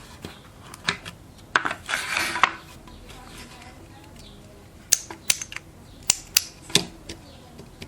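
Sharp clicks and taps of small hard plastic and metal parts being handled while a power strip is worked on by hand, with a rustling scrape about two seconds in and a quick run of crisp clicks near the end.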